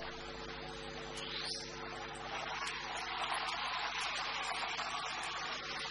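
Steady electrical mains hum under a constant hiss, with the hiss swelling slightly in the middle.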